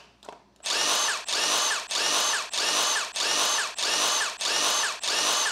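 Cordless impact driver spinning and hammering on the cylinder head bolts of a 5.3 LS V8, breaking them loose. It starts about half a second in and runs in a steady string of pulses, roughly two a second.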